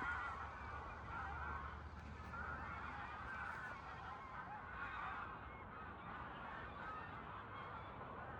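A flock of geese honking, with many overlapping calls going on continuously.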